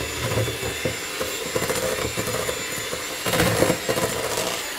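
Handheld electric mixer running steadily, its beaters working flour into a wet biscuit dough of creamed butter, sugar and eggs in a stainless steel bowl.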